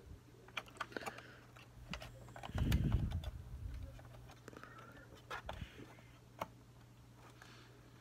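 Small plastic and metal clicks and taps as a DDR3 laptop RAM stick is handled and pushed into its slot, with a louder low rubbing rumble of a hand close to the microphone about two and a half seconds in.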